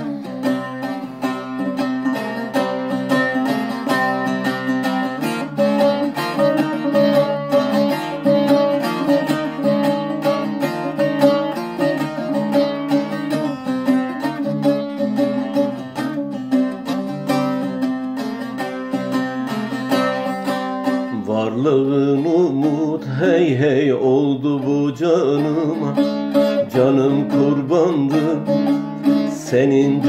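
Bağlama (long-necked Turkish saz) played in a steady, rapidly picked instrumental passage. About two-thirds of the way through, a man's singing voice joins the instrument.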